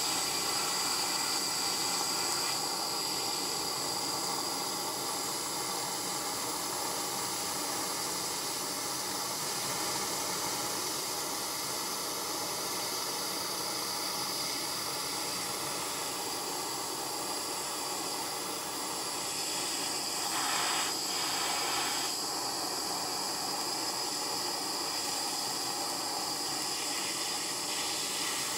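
Handheld butane kitchen torch flame hissing steadily as it caramelizes a sugar topping, with a brief slight swell about twenty seconds in.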